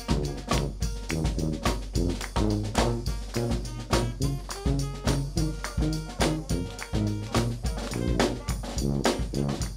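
New Orleans brass band playing jazz: sousaphone bass line under a steady bass drum and snare beat, with alto saxophone and brass horns.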